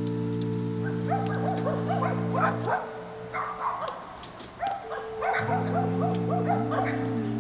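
A dog yipping and whimpering in quick, short, rising-and-falling cries. Under it runs background music of held chords, which drops out for about two and a half seconds in the middle.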